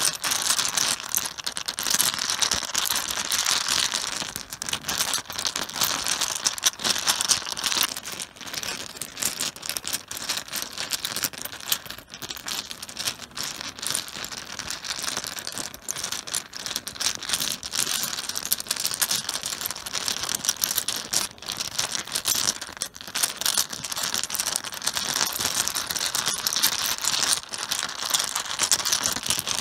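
Mahjong tiles being shuffled by hand on a cloth-covered table: a dense, continuous clatter of many small tile-on-tile clicks, somewhat damped by the cloth.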